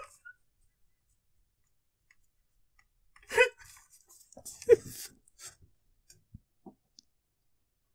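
A man's stifled vocal outbursts and breaths: two short, loud voice sounds about three and a half and five seconds in, with breathy noise around them, then a few faint clicks.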